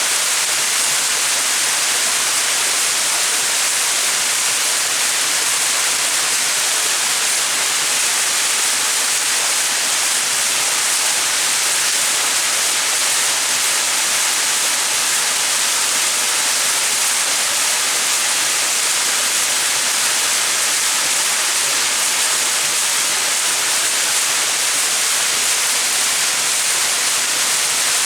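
Small mountain waterfall: a steady, even rush of falling water, hissy and bright, without change.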